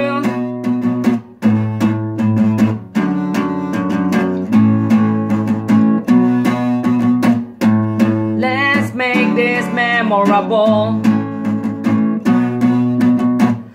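Capoed acoustic guitar strummed in a steady chord pattern. A man's voice sings a wavering line over it from about the middle to three quarters of the way through.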